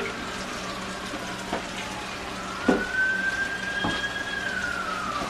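An emergency-vehicle siren wailing, its pitch falling, rising again and holding, then falling near the end. Dishes clink three times at the sink over running tap water, the middle clink the loudest.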